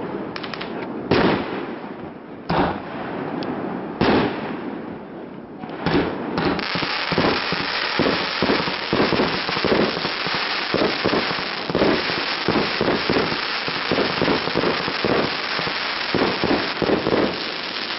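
Fireworks display: aerial shells bursting with separate bangs a second or so apart, then from about six seconds in a rapid barrage of bangs, several a second, over a continuous dense hiss.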